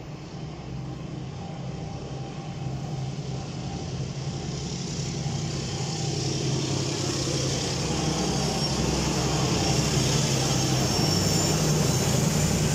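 Medway diesel locomotive hauling a loaded freight train of hopper wagons, approaching: a steady low engine drone with rising wheel-on-rail noise, growing steadily louder as it draws level.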